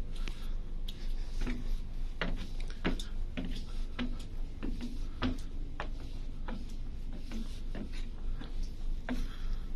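Footsteps climbing a ship's metal stairway, each step a sharp knock with a dull thud, about one and a half steps a second, over a steady low rumble.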